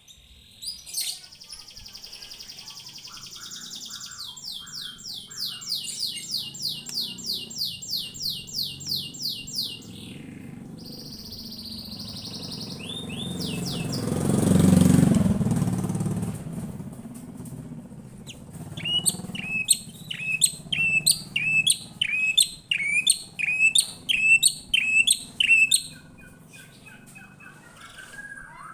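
White-rumped shama (murai batu) singing in fast runs of sharp repeated high notes, about two to three a second. Between the runs, a loud rushing noise swells and fades about halfway through.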